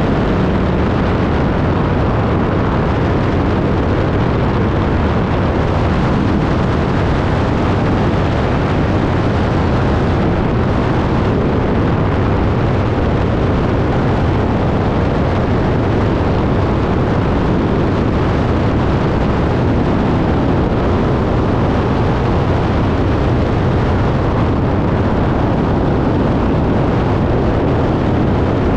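Steady drone of a small single-engine propeller aircraft in flight: engine, propeller and airflow noise that stays even throughout.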